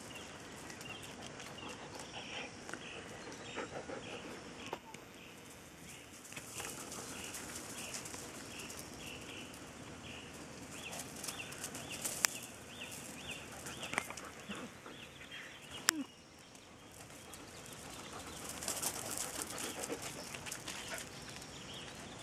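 Collie puppies' paws scuffling and crunching on gravel as they run and play, with small birds chirping repeatedly in the background and a few sharp clicks in the second half.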